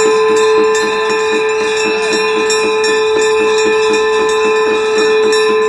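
Conch shells (shankh) blown in one long, steady note, with bells struck in a quick even rhythm over it.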